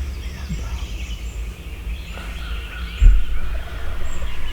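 Songbirds chirping and calling in the early-morning woods over a steady low rumble, with a low thump about three seconds in.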